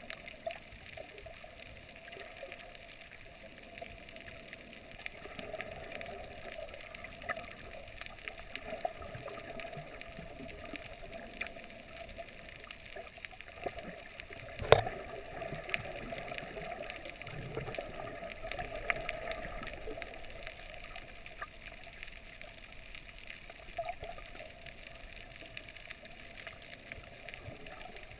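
Underwater ambience picked up by a submerged camera: muffled, steady water noise with scattered faint clicks, and one sharp knock about halfway through.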